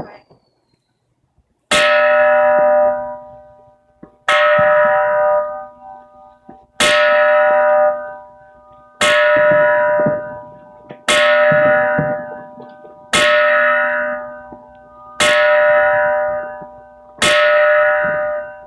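Nichiren Buddhist temple bell struck eight times, about every two seconds, starting a little way in. Each strike rings with several clear tones that fade until the next strike, part of the 108 New Year's strokes.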